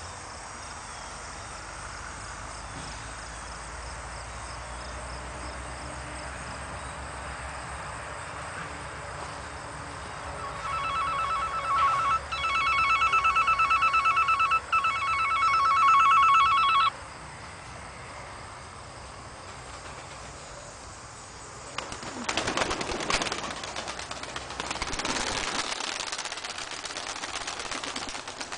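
A telephone rings in fast trilling bursts for about six seconds in the middle. Later, pigeons' wings flap in two spells as the birds take off and fly overhead.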